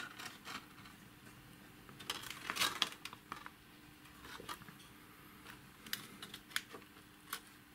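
Light clicks and taps from handling the stall warning computer's metal chassis and circuit boards as the unit is turned over, with a cluster about two to three seconds in and a few sharper clicks near the end.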